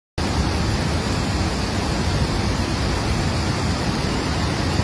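Steady, unbroken rushing noise of a flash flood in the rain, picked up by a phone's microphone outdoors; it starts abruptly a moment in.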